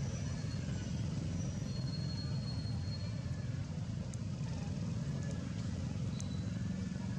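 Steady low outdoor rumble with no clear rhythm or pitch, and a few faint thin high whistles now and then.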